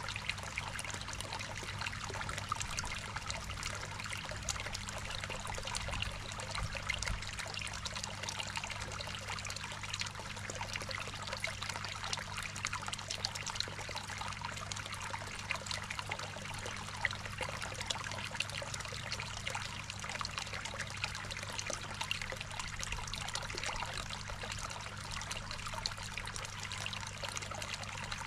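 Water trickling and splashing steadily into a koi pond, with a steady low hum underneath.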